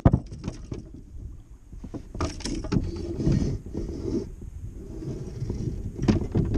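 Knocks, clunks and rattles of a paddle and fishing gear being handled in a canoe. There is a sharp knock at the start, a cluster of clatter about two seconds in and another near the end.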